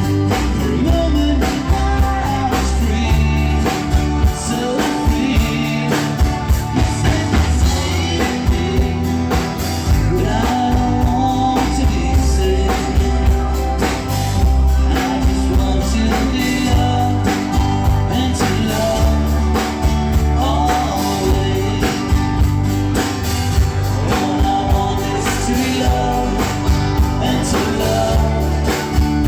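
Live rock band playing, with electric guitar, bass and drums at an even beat, and a melodic line bending in pitch over the top.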